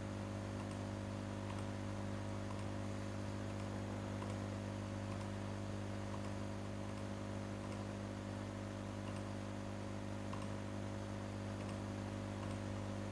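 Steady electrical hum, with faint computer mouse clicks every second or so as drop-down list entries are picked.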